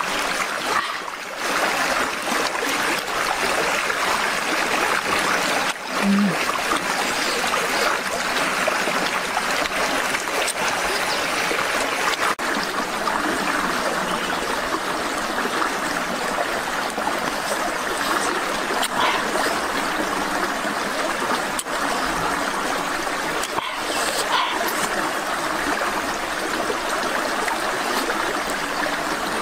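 Steady rush of running water, like a stream.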